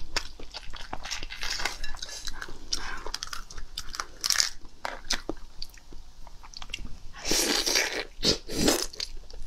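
A large raw prawn's shell being cracked and pulled apart by hand: a run of small crackles and clicks. Near the end come two louder, longer bites into the prawn.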